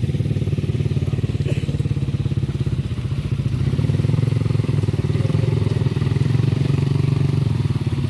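Small motorcycle engine running steadily, a low, even pulse at a fairly constant level.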